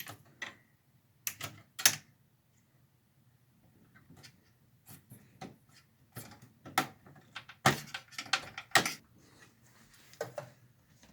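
Power supply cable connectors being unplugged inside a desktop computer: an irregular string of sharp plastic clicks and knocks, the loudest about two seconds in and again near eight and nine seconds in.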